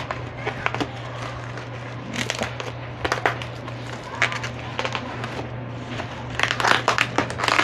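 Black plastic shipping bag crinkling and rustling as hands pull and tear it open, in irregular crackly bursts that grow busier and louder near the end. A steady low hum sits underneath.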